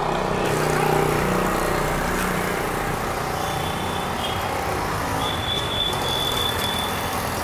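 Steady road-traffic noise, a dense even rumble of passing vehicles. A thin high tone sounds for under a second about five seconds in.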